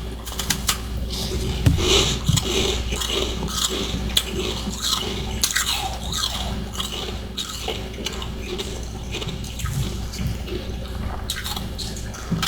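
Someone biting and chewing freezer frost and ice chunks, with a run of irregular crisp crunches and crackles throughout.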